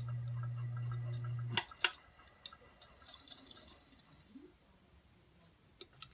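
Ceiling fan motor with a bad capacitor humming steadily at low pitch. About a second and a half in there is a sharp click, likely the pull-chain switch, and the hum cuts off, leaving only a few faint ticks.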